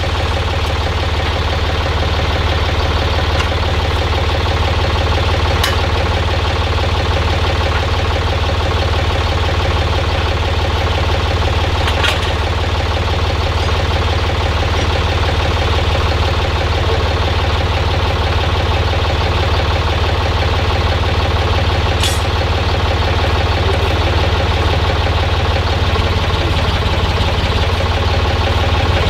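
Heavy engine idling steadily, with a strong low hum, likely the crane truck holding the wheelset. A few sharp clicks stand out now and then.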